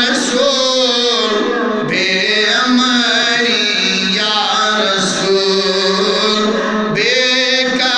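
A man's solo voice chanting a Kashmiri naat, a devotional poem in praise of the Prophet, in long held notes with wavering ornaments.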